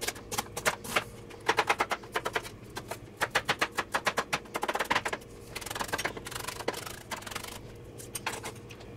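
Chef's knife chopping a shallot on a cutting board: quick runs of sharp taps, about seven or eight a second at their fastest, thinning out near the end.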